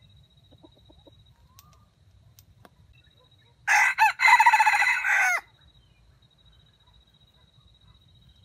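Red junglefowl rooster crowing once, a loud crow of under two seconds about halfway through, with a brief break just after it starts and a falling end.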